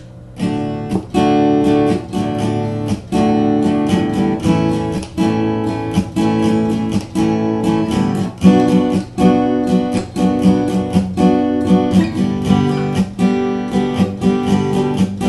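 Acoustic guitar strumming chords in a steady rhythm, an instrumental introduction that leads into a sung children's rhyme.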